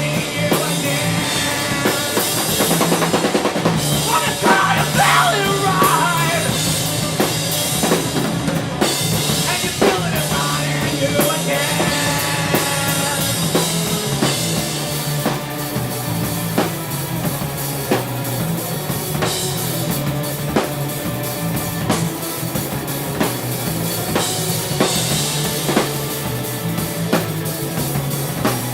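Rock band playing live, with a drum kit's kick and snare hits driving the music.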